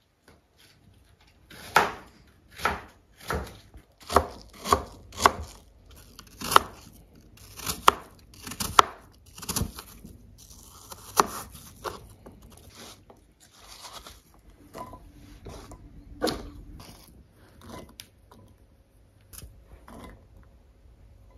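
Knife chopping on a cutting board: a run of sharp strokes, roughly one every half second to second, for the first half, then fewer and softer knocks.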